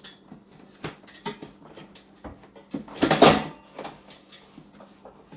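Metal-framed dining chairs knocking and clattering as they are handled and stacked: a string of short knocks, with a louder clatter about three seconds in.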